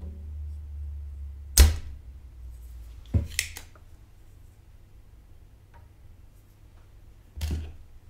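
Spring-loaded desoldering pump at a motherboard solder joint: a loud, sharp snap about one and a half seconds in, a quick pair of clacks a little after three seconds, and another snap near the end.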